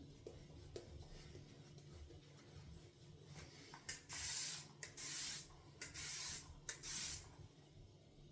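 Synthetic shaving brush working lather in a bowl. There is soft scratchy brushing at first, then about four short hissing swishes starting about four seconds in.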